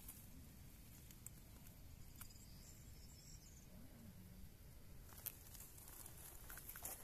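Near silence: a faint low rumble with a few soft clicks, and a brief faint high chirping about two to three seconds in.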